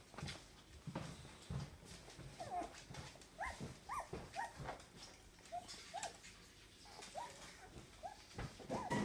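Wire Fox Terrier puppies, about three weeks old, whimpering in a run of short, high squeaks that start a couple of seconds in and keep coming, over soft bumps and shuffling as they crawl about.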